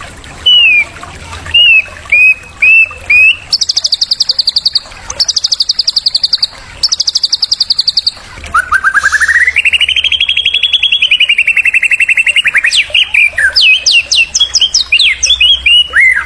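Recorded songbird song played as a masteran (a training and stimulating song for white-rumped shamas). It opens with a few short rising whistles, then three fast, high trills, then a long rapid trill sliding up in pitch about halfway through, followed by quick varied notes.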